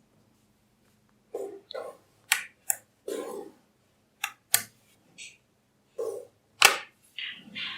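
Small magnetic balls clicking as they snap together, several sharp clicks among softer rattling and shuffling of the balls.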